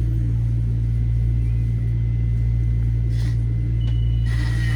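Steady low hum and rumble inside a Metro-North M7A electric multiple-unit car, with a thin, steady high-pitched whine over it. A second high tone joins near the end.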